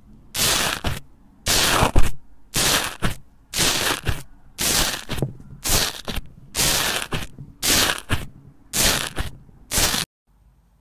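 A metal press tool pushed repeatedly into bubbly foam slime, each press a crackling, crunching squish ending in a sharp click, about one a second, ten times over. The sound cuts off suddenly near the end.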